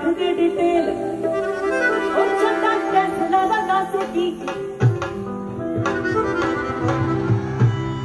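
Live band music for a Punjabi song played over the stage sound system, a melody over percussion, with heavier low beats coming in about five seconds in.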